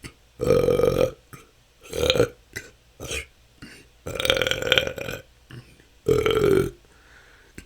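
A person belching naturally, unforced: four loud burps with a few short faint ones between them, the longest lasting just over a second about halfway through.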